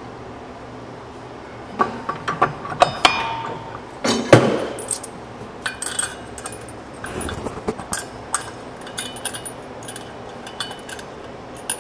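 Metal parts clinking and knocking as clutch components and tools are handled: a run of sharp clinks, a heavier knock about four seconds in, then lighter scattered clicks.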